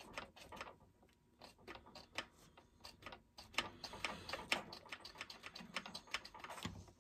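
Quick, irregular light clicking and ticking of metal parts on a McCulloch Mac 10-10 chainsaw being worked by hand, with a couple of short pauses, as the oiler is tested after its clogged oil line was flushed.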